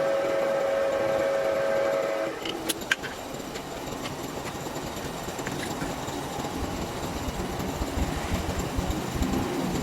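Metal lathe work: a steady high-pitched squeal stops about two seconds in, followed by two sharp clicks and then a steady rumbling, grinding noise.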